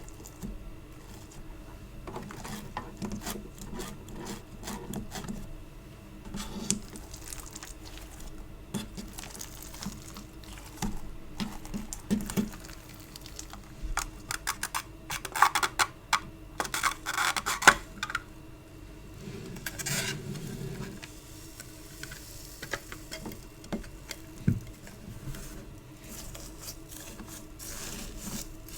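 Hands squishing, poking and pulling sticky store-bought play putty, giving rapid crackly clicks and wet smacks. A louder flurry of sticky snapping comes about halfway through.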